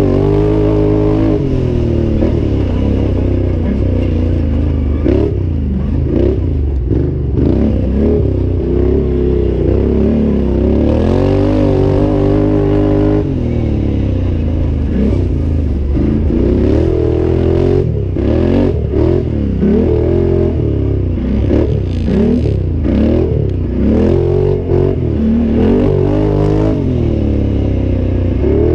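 A 2014 Can-Am Outlander 800's V-twin engine revving up and down again and again under racing throttle, with frequent knocks and rattles. About eleven seconds in it holds steady revs for around two seconds.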